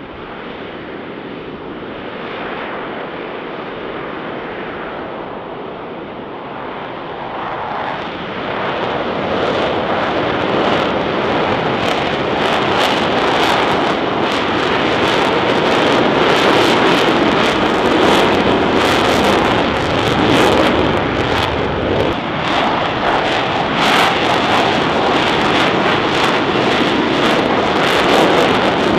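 Jet engines of F/A-18 Super Hornets running up and accelerating down the runway for a formation takeoff, the jet noise building steadily over the first ten seconds or so into a loud, crackling rumble that stays up.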